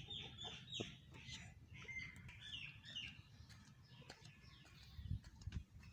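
Poultry, aseel chickens, faintly clucking and chirping in quick short falling peeps, with a couple of low thumps about five seconds in.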